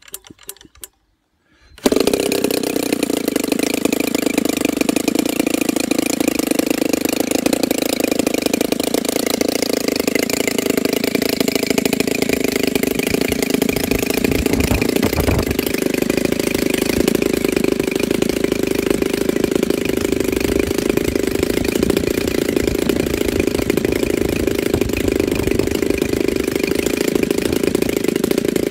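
A brand-new RCGF 40cc twin-cylinder petrol model-aircraft engine is hand-flipped by its propeller. After a few faint flicks it fires about two seconds in and runs steadily, turning a 20x8 wooden prop, and its note shifts slightly about halfway through. The engine is still being run in.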